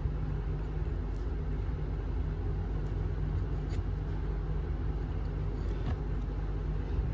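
Steady low background rumble with a few faint, light ticks scattered through it.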